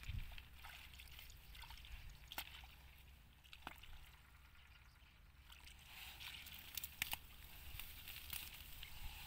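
Faint squelching and rustling of a hand digging into a muddy hole among dry grass, with scattered small crackles.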